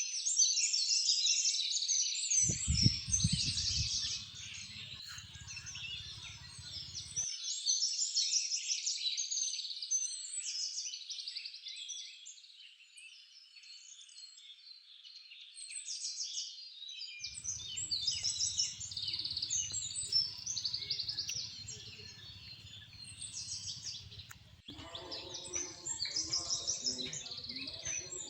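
A chorus of many small birds chirping and twittering at once, high-pitched and dense, swelling and fading in waves and thinnest around the middle. A low rumble comes and goes underneath, loudest about three seconds in.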